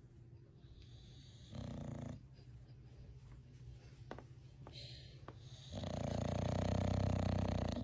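English bulldog snoring in its sleep: a short snore about one and a half seconds in, then a longer, louder snore over the last two seconds.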